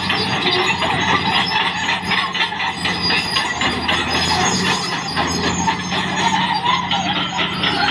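CAT D6R XL bulldozer running steadily, its diesel engine humming under a dense, rapid clatter and squeal of the steel tracks.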